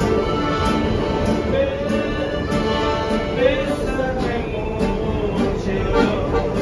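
Acoustic guitar and accordion played live by buskers inside a subway car: a continuous accordion melody, with some notes sliding, over guitar accompaniment.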